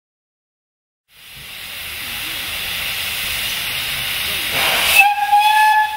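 1931 Sentinel steam bus hissing loudly as it blows off steam, starting about a second in. About five seconds in, its steam whistle sounds one steady note.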